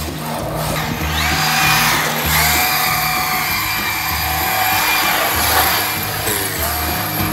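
Background music with a steady beat, over the whine of an Arrma Mojave 4S RC truck's brushless electric motor rising and holding as the truck drifts and slides on wet tarmac.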